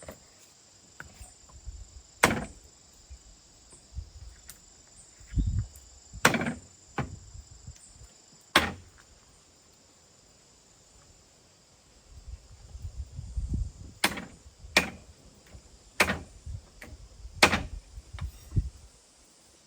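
About eight sharp knocks or chops at irregular intervals, several in quick pairs, with a low handling rumble between some of them. Insects trill steadily and high-pitched underneath.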